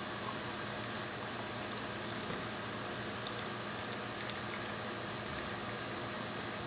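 Hot coffee pouring from a French press into a ceramic mug: a thin, steady trickle of liquid over a continuous background hiss and hum.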